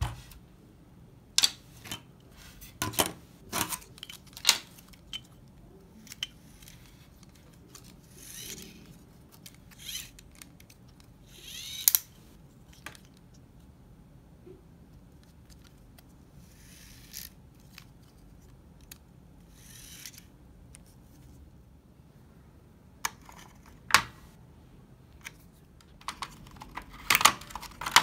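Handling noise of a CD player's laser pickup mechanism, its sheet-metal frame and plastic parts: irregular sharp clicks and taps with a few brief scrapes, more of them close together near the end, as it is turned in the hands and set on the work surface.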